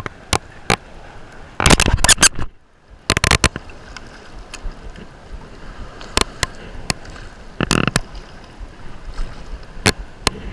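Choppy shallow salt water slapping and splashing against a waterproof action-camera housing held at the surface, with sharp knocks scattered through and a louder burst about two seconds in. A hooked summer flounder splashes at the surface as it is brought in.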